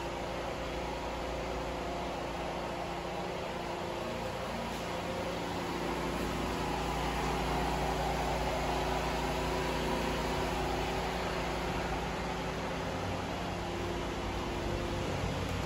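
A steady mechanical hum with a hiss, a little louder from about six seconds in.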